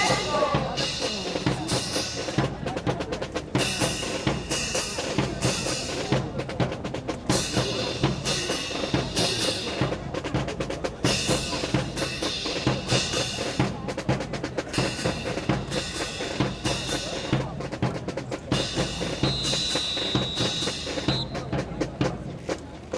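Marching-drum cadence of snare and bass drums with rapid, dense strikes and rolls, beating time for a drill team. Near the end a steady high tone sounds for about two seconds.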